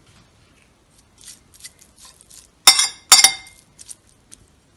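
Metal fork and spoon clinking against a ceramic bowl while lifting and sorting noodles. There are two sharp clinks a little after halfway, with lighter taps before and after them.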